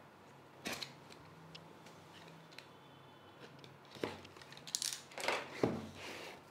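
A utility knife slicing the packing tape on a cardboard box, one short scratch under a second in; then the cardboard box being handled and its flaps opened, a run of scrapes and knocks with the loudest near the end.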